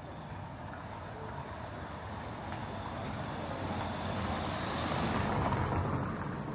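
A motor vehicle passing close by on a street, growing louder to a peak about five seconds in and then fading.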